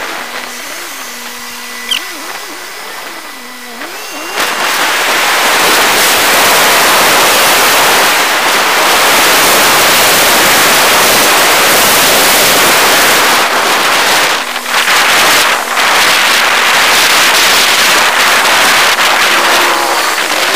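Car driving, heard through a small action camera's built-in microphone. A quieter hum with a wavering low tone gives way about four seconds in to a loud, steady rush of road and wind noise, with a couple of brief dips.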